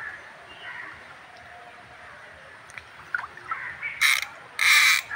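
A hooked catla thrashing at the pond surface: two short, loud splashes about four and four and a half seconds in. Crows caw in the background.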